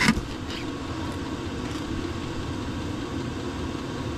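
A steady low rumble throughout, with a brief knock right at the start.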